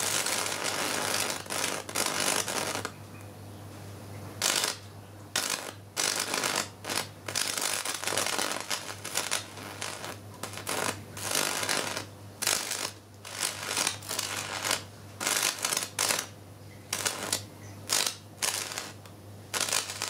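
Electric arc from a microwave-oven-transformer (MOT) setup crackling and sputtering as a welding stick is struck and drawn again and again. It runs unbroken for the first few seconds, then comes in irregular bursts of under a second to about a second, more rapid toward the end, over a steady low mains hum.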